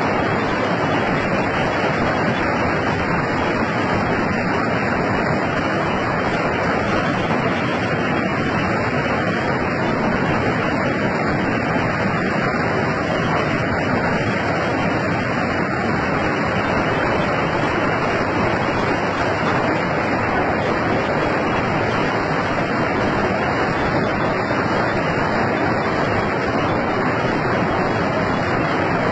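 Flash-flood water rushing in a muddy torrent down a street: a steady, loud rushing noise.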